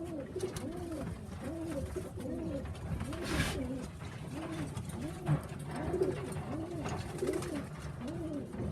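Racing pigeons cooing in a loft: repeated rising-and-falling coos from several birds, overlapping at about two a second. A short rustling burst, perhaps wings, about three seconds in.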